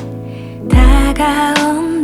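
Background music: a slow, soft Korean ballad with sustained chords and a deep bass note. About a second in, a voice comes in singing a wavering melody in Korean.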